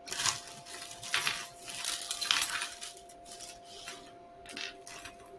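Costume jewelry being handled and sorted by hand: metal chains, beads and small pieces clinking and rustling against each other in irregular bursts.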